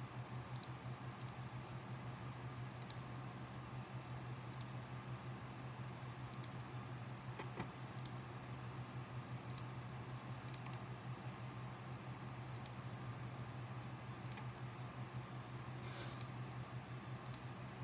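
Computer mouse clicks: single sharp clicks at irregular intervals of a second or two, with a slightly longer click near the end, over a steady low hum.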